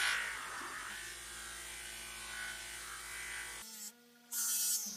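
Electric polishing buffer running with a steady motor buzz and hiss. It cuts off abruptly about three and a half seconds in, and a short high hiss follows near the end.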